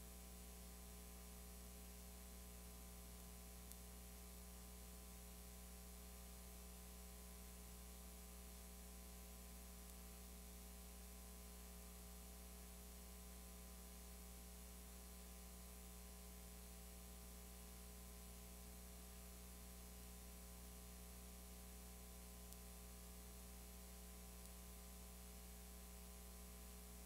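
Near silence: a steady electrical mains hum and hiss of a blank stretch of recording, with a faint tick about four seconds in.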